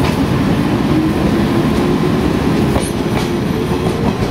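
Train running, heard from inside the passenger car: a steady low rumble with a faint hum and a few wheel clicks over rail joints about three seconds in.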